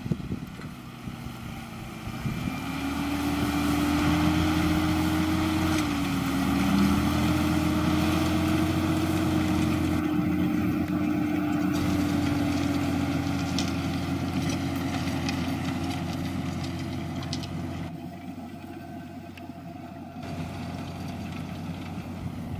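John Deere 6210R tractor's six-cylinder diesel engine working under load while pulling a six-furrow plough. It grows louder over the first few seconds, runs steadily, then fades away near the end.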